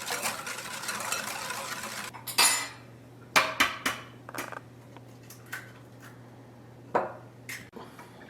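Utensil stirring a mixture of sugar, melted butter and oil in a mixing bowl, scraping steadily for about two seconds and then stopping. A few sharp clinks and knocks of utensil against the bowl follow, spread through the rest.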